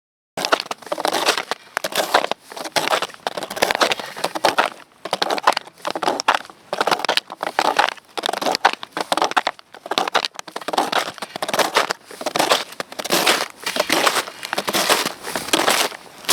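Snowshoes crunching on snow with each step at a steady walking pace, about three steps every two seconds. The crunching starts abruptly just after the beginning.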